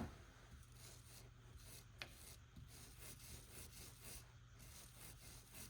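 Near silence: faint rubbing, with a light click at the start and another about two seconds in.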